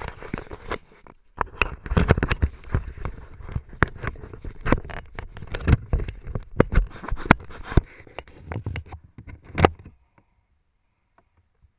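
Handling noise from a body-mounted action camera being moved and fitted into place: irregular knocks, scrapes and rubbing against the rider's jacket. It stops abruptly about ten seconds in, once the camera is settled.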